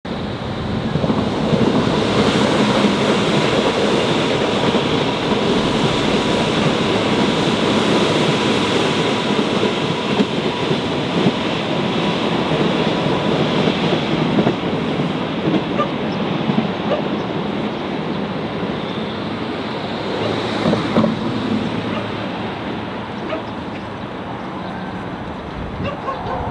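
Electric commuter train of Seoul Subway Line 4 running on the track: loud steady rolling noise with a faint steady whine and occasional clicks, easing off a little in the last few seconds.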